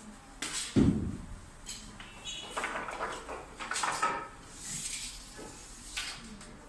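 A heavy thump about a second in, followed by a run of lighter knocks, clatters and scrapes, like objects being moved or handled.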